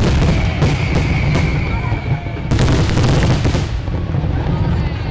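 Fireworks finale barrage (traca): rapid, continuous bangs and crackling over a low rumble, with a steady high whistle in the first half. A denser burst of cracks comes just past the middle, then the barrage thins out near the end.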